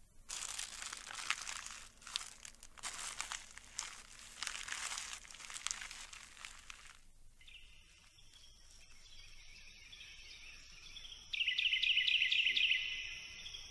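Irregular crunching and rustling for about seven seconds. Then high, steady chirping from outdoor wildlife, with a rapid louder trill near the end.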